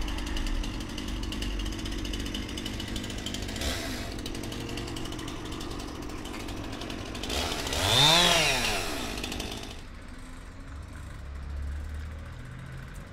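Chainsaw engine running, revved up once about eight seconds in with its pitch rising and then falling back, then running quieter for the last few seconds.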